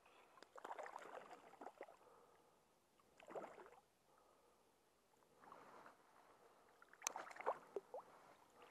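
A hooked fish splashing at the water's surface on a fly line, in several short bursts of splashing as it is played in and brought to hand.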